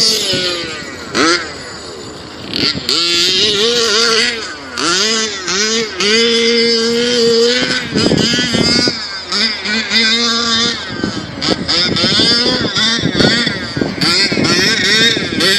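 A 27cc two-stroke petrol engine in an RC monster truck revving up and down as it is driven, its pitch climbing and falling with the throttle. It holds a steady high note at full throttle for a couple of seconds past the middle and briefly again after that, and runs quieter for a moment early on.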